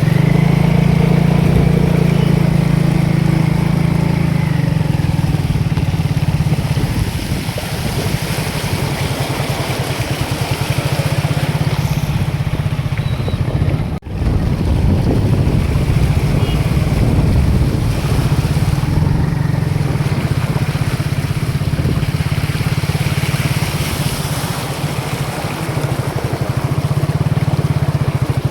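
A small engine running steadily, with a brief dropout about halfway.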